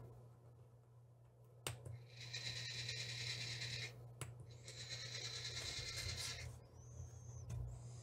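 Two faint push-button clicks, each followed by a Tortoise switch machine's small motor whirring with a thin steady whine for about two seconds as it throws the turnout points. A low steady hum runs underneath.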